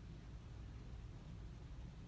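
Casablanca Spirit of Saturn ceiling fan running with worn-out bearings, giving a faint, rough low rumble.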